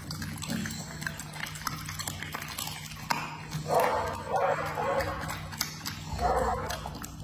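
A dog licking and smacking its lips with wet clicking sounds, with a few short, throaty vocal sounds from the dog about four and six seconds in.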